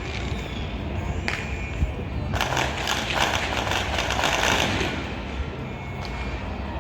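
Fireworks going off: a single pop about a second in, then a dense run of crackling for about two and a half seconds.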